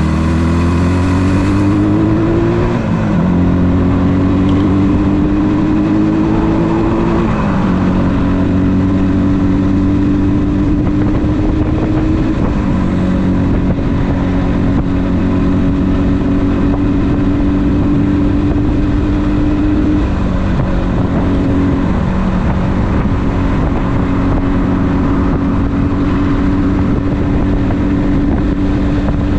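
1976 Yamaha RD400's air-cooled two-stroke twin engine pulling away. It rises in pitch and drops back at three upshifts in the first half, then runs steadily at cruising speed.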